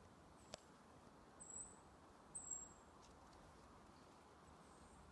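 Near silence, broken by two short, thin, very high-pitched calls about a second apart, typical of a small bird. A single sharp click comes about half a second in.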